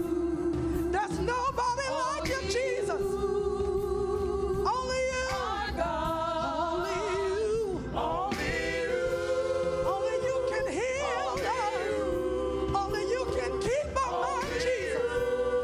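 Gospel singing with music: long held, wavering vocal notes and runs over a steady accompaniment.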